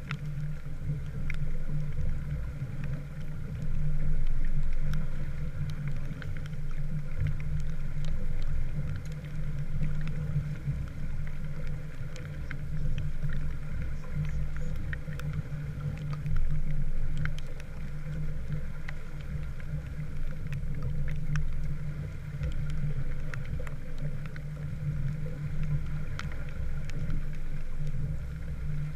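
Small sailboat under way in the rain: a steady low hum with water and wind noise, and scattered light ticks of rain.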